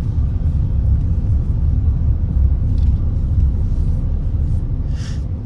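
Steady low rumble of a car driving, the road and engine noise of the vehicle.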